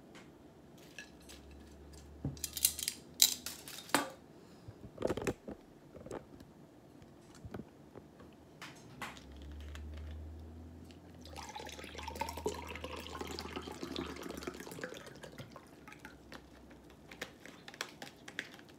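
Metal serving tongs clinking against a ceramic plate a few times. About halfway through, a juice drink pours from a carton into a glass for a few seconds.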